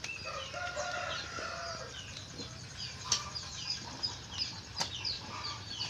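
Backyard chickens clucking while small birds keep up a run of short, falling chirps. Two sharp knocks come about three seconds in and again near five seconds.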